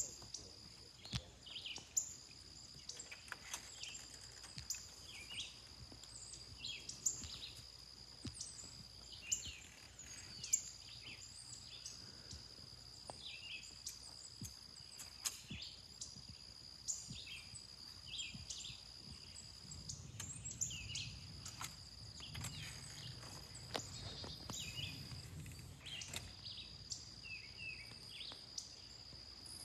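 Outdoor insect chorus holding a steady high drone that breaks off every few seconds, with many short bird chirps scattered over it. A faint low rumble comes in about two-thirds of the way through.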